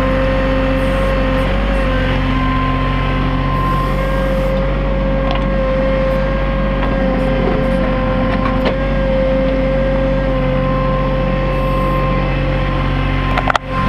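New Holland TC33D compact tractor's diesel engine running steadily under backhoe work, with a steady high whine over it. Near the end the sound briefly breaks up with a few clicks.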